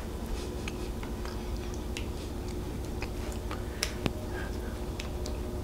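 Scattered light clicks and taps of a utensil against a casserole dish and bowl as a creamy soup-and-milk sauce is spread over chicken, over a faint steady hum.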